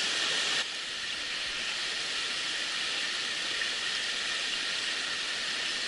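Mountain stream water rushing steadily, a little quieter from about half a second in.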